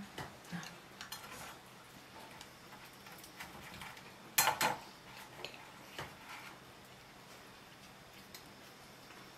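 Forks and dishes clinking now and then at a table, with a louder double clink about halfway through.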